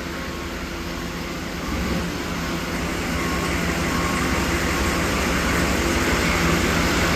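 1995 Chevy 3500's 6.5L diesel V8 running at idle, cold after sitting all winter, with a steady hum that grows slowly louder. The owners suspect the fuel has gelled, which makes it hard to keep idling.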